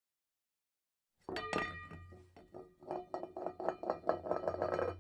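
A quick run of clinking strikes with ringing tones, starting suddenly about a second in and growing faster and denser, over a low steady hum.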